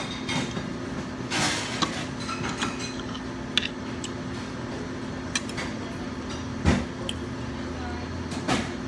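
Diner ambience: a steady background hum with a few scattered clinks and knocks of dishes and cutlery at the table, the loudest a dull thump about two-thirds of the way through.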